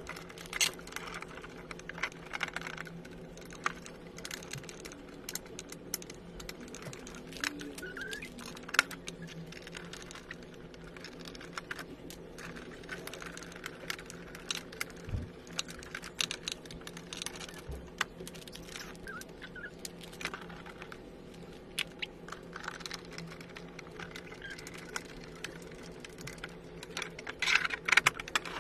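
Scattered small clicks and taps of hands working on a wooden toy kitchen's panels and fittings, with a quick run of louder clicks near the end.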